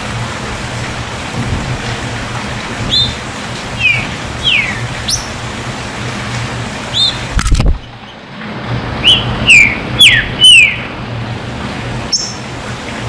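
Green-winged saltator (trinca-ferro) giving short, sharp, down-slurred whistled notes. They come scattered at first, then four loud ones follow in quick succession from about nine to eleven seconds in, over a steady hiss. A brief thump comes about halfway through.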